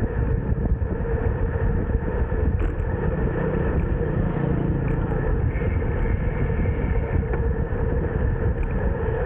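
Steady wind and road rumble on the microphone of a camera riding along on a moving bicycle, with a faint steady hum running under it.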